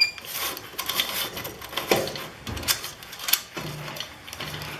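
Steel banding strap and its buckle being handled and threaded around a pole: irregular metallic clicks and clinks, with a sharp ringing click at the start.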